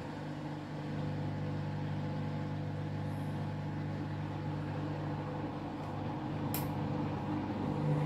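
Candy front-loading washing machine in the main wash of its Rapid 14 programme: the drum motor hums steadily as the drum turns, getting a little louder about a second in. One sharp click comes about six and a half seconds in.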